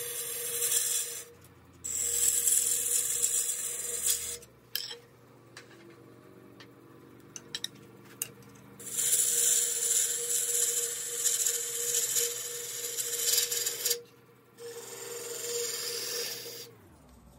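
Wood lathe running with a steady hum while a turning tool cuts a dry tea tree (melaleuca) spindle, in loud hissing passes of a few seconds each separated by quieter gaps with a few light clicks. Near the end the lathe's hum drops in pitch and fades as it winds down.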